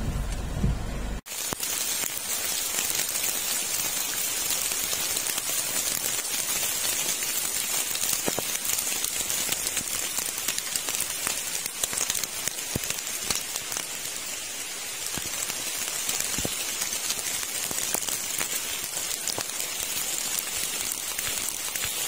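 Steady rain falling, an even hiss with scattered close drop ticks. It follows a low rumble that cuts off abruptly about a second in.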